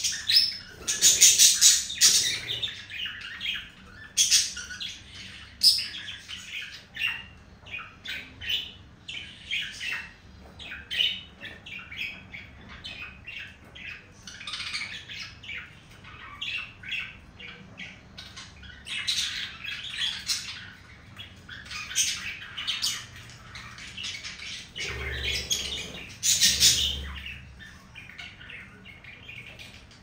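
Budgerigars chattering without pause, a rapid run of short chirps and warbles with louder, squawky bursts every few seconds, the chatter of a male budgie courting a female.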